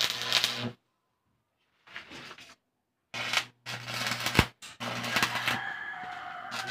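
Electric arc welding on a steel square-tube frame: the arc crackling and sizzling in four bursts separated by short pauses, with a low hum under the crackle.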